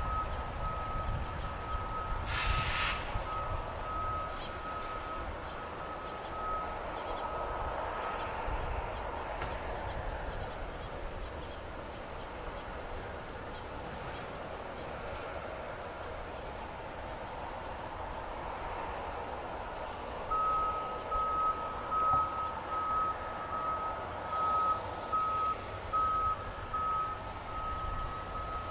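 Insects trilling steadily over a low rumble, with a short repeating beep that grows louder from about twenty seconds in.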